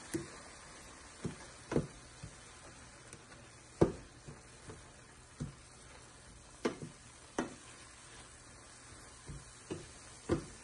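Wooden spoon stirring sautéed spinach and mushrooms in a stainless steel pan, knocking and scraping against the pan about a dozen times at an irregular pace, the sharpest knock about four seconds in, over a faint sizzle.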